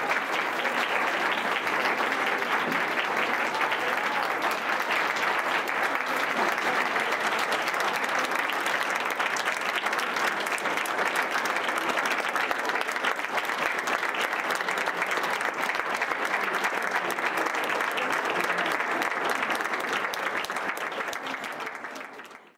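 An audience applauding: many hands clapping steadily at an even level, fading out near the end.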